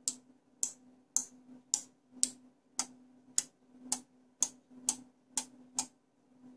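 Electromechanical relays on an 8-channel relay board clicking as they are switched on and off one after another, a sharp click about every half second, about a dozen in all. A faint steady hum runs underneath.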